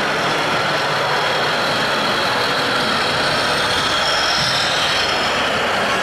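Radio-controlled scale model Swiss Army Saurer truck driving slowly, with a steady engine-like sound such as an RC truck's sound module gives, over a constant hiss of background noise.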